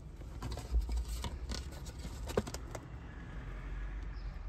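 Scattered light clicks and scrapes of hands handling rubbish in a van cab, over a low steady rumble.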